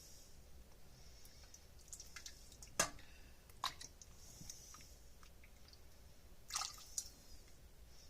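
A few light clicks and knocks of a utensil against dishes, with small wet drips and squishes, as pot-roast meat, carrots and broth are spooned into containers. The sharpest knock comes about three seconds in.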